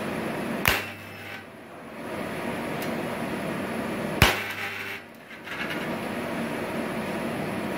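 SWP 50T-DS thyristor spot welder firing two spot welds through its hand-held gun onto thin sheet steel, about three and a half seconds apart. Each starts with a sharp snap followed by under a second of low hum, over a steady background noise.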